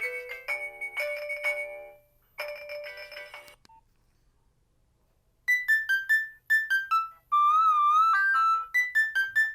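Nokia 1600 ringtones playing from the phone's speaker: a chiming melody breaks off about two seconds in and plays one more short phrase. After about two seconds of silence, a different ringtone starts with quick short beeping notes and a warbling held note.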